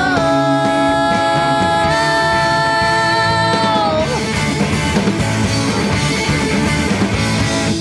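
Live rock band with singer: a long held vocal note for about four seconds over electric guitar and drums, then the band plays on without the voice.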